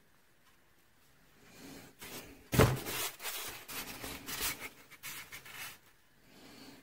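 Stainless steel exhaust silencer being handled and set down in its polystyrene packing tray. About two and a half seconds in there is one sharp knock, followed by a few seconds of rubbing, scraping and smaller knocks.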